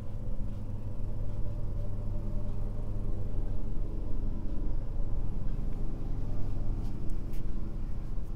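A steady low hum, with a few faint clicks near the end.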